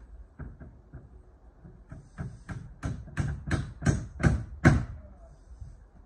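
Hammering on a timber shed: a few faint taps, then a run of about eight sharp knocks at about three a second, getting louder.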